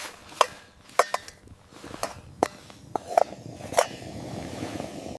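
A series of sharp knocks and clicks, irregularly spaced, about eight in five seconds, over a faint steady background hiss.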